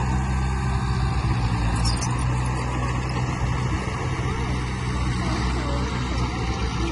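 Heavy diesel engine of earthmoving machinery running steadily with a deep, even hum.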